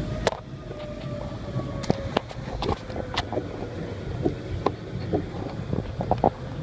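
Low road rumble inside a moving car, with irregular sharp ticks and taps scattered over it; one louder click comes about a third of a second in.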